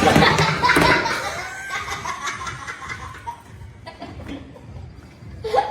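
People laughing hard, loudest in the first second or so and then trailing off into quieter laughs.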